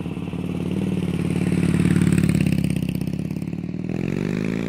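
Harley-Davidson Night Train's 88-cubic-inch Twin Cam V-twin running through a D&D 2-into-1 exhaust. It gets louder through the middle and rises in pitch with a rev near the end.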